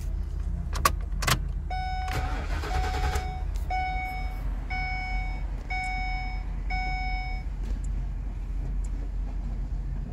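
Two sharp clicks, then an electronic warning beep sounding six times, about once a second, each beep nearly a second long, over a steady low hum. A short rustling burst comes under the first beep.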